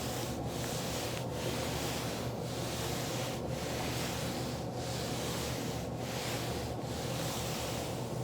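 Foam roller rolling back and forth under a person's body, a continuous rubbing that eases briefly about once a second as each stroke turns.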